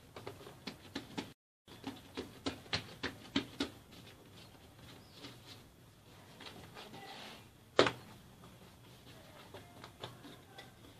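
Hands patting and pressing a ball of yeasted croissant dough flat on a countertop: a run of soft taps in the first few seconds, then quieter handling, with one sharper knock about eight seconds in.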